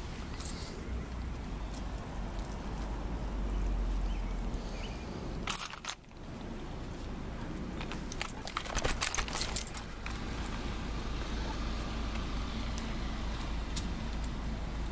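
A dog's metal chain collar jingling in short bursts as the dog moves about, once about five and a half seconds in and again around nine seconds in, over a steady low rumble.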